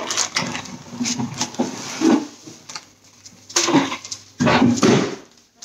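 Clear plastic bag wrapped around bare-root roses crinkling and rustling as it is handled and lifted out of a cardboard box, in irregular bursts with a lull near the middle.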